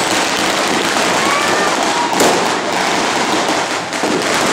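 Fireworks and firecrackers crackling densely and without a break, with a louder bang about two seconds in and a short whistle just before it.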